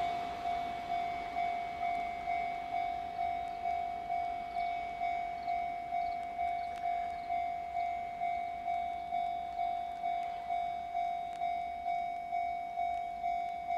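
Railway level-crossing warning bell ringing, one clanging tone repeated evenly about every 0.6 seconds, each strike fading before the next.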